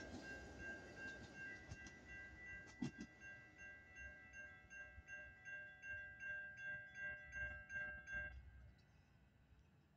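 Railroad grade crossing warning bells ringing steadily as the tail of a Metra commuter train clears the crossing and its rumble fades; the bells stop about eight seconds in.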